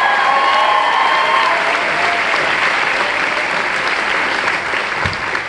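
Large crowd applauding, with cheering voices over the first second or so.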